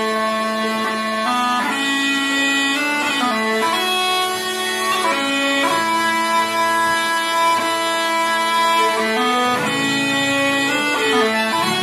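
Bagpipe music: a melody moving from note to note over a steady drone.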